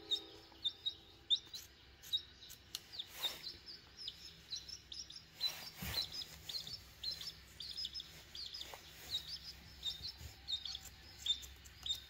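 Baby chick peeping in quick, high chirps that repeat over and over, with a few sharp snips of scissors cutting self-adhesive bandage wrap.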